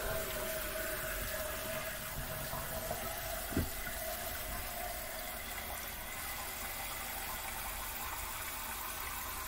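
Kitchen tap water running steadily into a container held under it in a stainless steel sink, with a single knock about three and a half seconds in.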